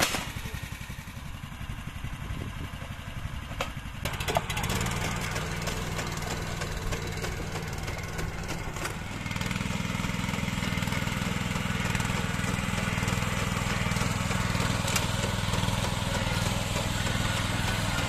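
Small engine of a walk-behind rice transplanter running steadily while it plants seedlings. It gets louder about four seconds in.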